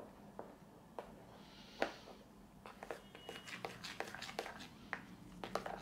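Sticky fluffy-slime mixture of white glue, lotion and shaving foam being stirred in a bowl: soft, uneven clicks and little wet pops, the loudest about two seconds in.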